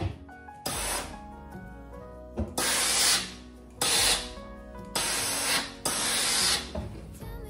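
Steam iron shooting out five short bursts of steam, each a loud hiss lasting under a second.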